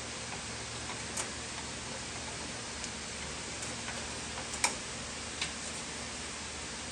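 A few light, sharp clicks and taps of small metal parts being worked into a car door, the loudest just past the middle, over a steady hiss.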